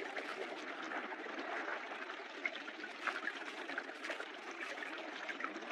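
Sea water washing and trickling, a steady hiss with faint scattered crackles.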